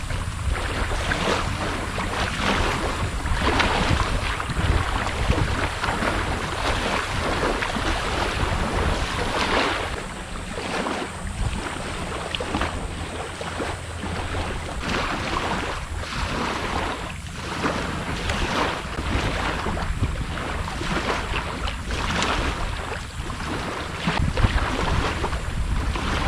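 Wind rumbling on the microphone over repeated swishes and splashes of water, roughly one a second, from someone wading through shallow water.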